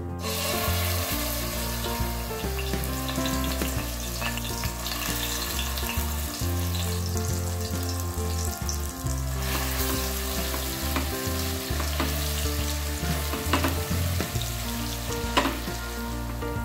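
Green masala paste sizzling in hot oil in a metal pot, the hiss starting suddenly as the paste drops in, with bay leaves added. Later a wooden spatula stirs and scrapes the paste through the oil.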